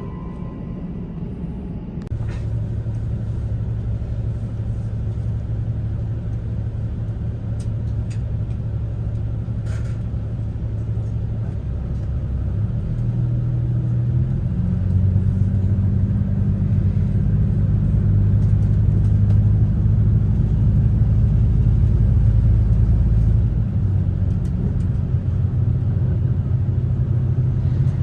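Wide View limited express train running, heard inside the carriage: a steady low rumble and hum that shifts in pitch and grows louder about halfway through, with a few faint clicks. An on-board chime begins just at the end.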